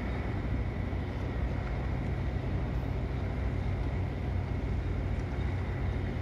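Wind rumbling steadily on the microphone, with a faint steady high whine running underneath.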